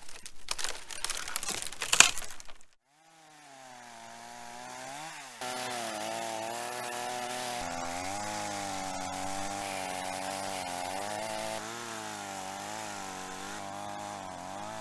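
Chainsaw cutting through a fig log, the cut ending about two and a half seconds in. After a brief quiet the saw's engine rises in pitch and keeps running at speed, its pitch wavering with the throttle.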